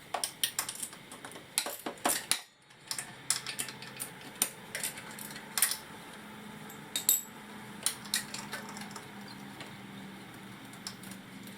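Ratchet and 10 mm socket on an extension working an exhaust manifold nut loose on a Honda ADV150 scooter: irregular sharp metallic clicks and clinks, with a brief pause about two and a half seconds in.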